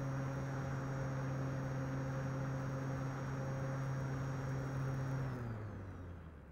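Model airplane's motor and propeller running steadily in flight, a hum with a thin high whine over a rush of air. About five seconds in, the pitch drops and the sound fades as the throttle comes back.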